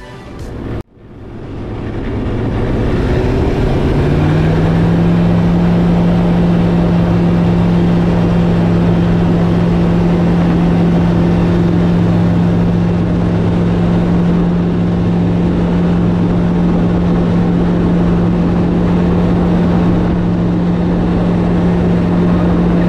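Zenith STOL light aircraft's engine and propeller going to full power for takeoff: the sound builds and rises in pitch over the first few seconds, then runs steadily and loudly for the climb-out.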